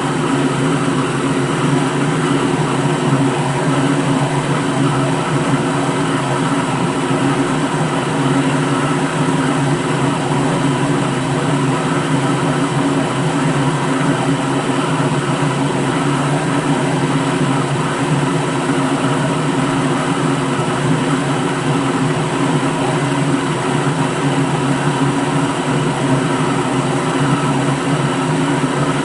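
Electric blender motor running steadily at one constant speed: a loud, even hum with a whirring hiss over it, never changing.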